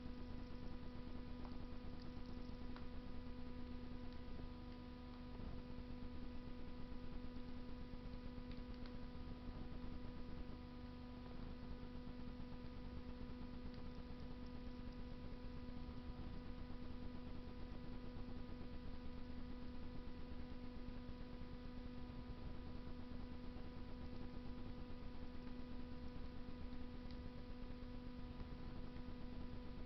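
Steady electrical hum with a faint hiss under it. A few faint crackles come from a wood fire burning in a Russian masonry stove.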